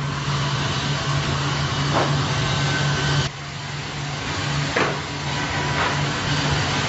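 Sawmill machine running with a steady low hum and a few light knocks; the sound drops suddenly in level about three seconds in.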